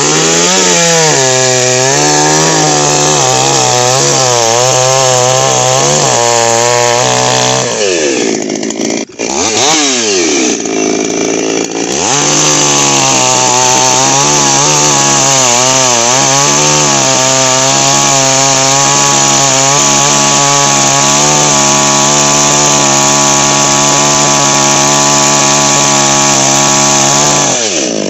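Two-stroke petrol chainsaw running at high revs while cutting into a dry tree stump. The engine pitch wavers as the chain bites, drops and picks back up twice about eight to twelve seconds in, then holds steady before falling off near the end.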